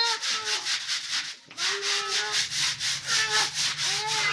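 Bundle broom scrubbing the wet concrete floor of a drained fish pond, rough rhythmic strokes about four a second, scouring off algae. A few short wavering pitched sounds come and go over it, and a low steady hum joins about halfway through.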